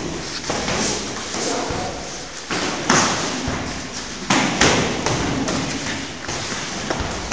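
Gloved punches and shin-guard kicks landing during kickboxing sparring, a series of sharp thuds; the hardest come about three seconds in and twice around four and a half seconds.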